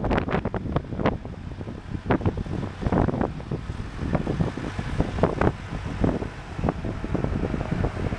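Gusty wind buffeting the microphone: a loud, uneven low rumble broken by many irregular thumps.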